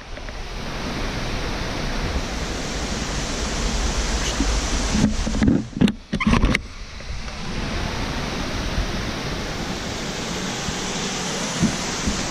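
Waterfall pouring into a pool: a steady rush of water, with a few brief knocks about halfway through.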